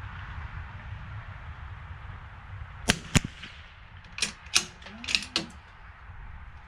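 Bolt of a bolt-action .22 rimfire rifle being worked: two sharp metallic clicks about three seconds in, then four more clicks over the next second and a half, over a low rumble of wind.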